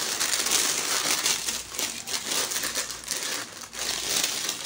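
Tissue wrapping paper from a shoe box crinkling and crackling as it is crumpled and folded by hand.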